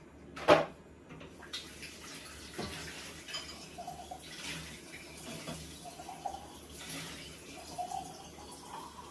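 Paint-rinse water being changed at a kitchen sink: a sharp clunk of the water container about half a second in, then tap water running and splashing into it in uneven spurts.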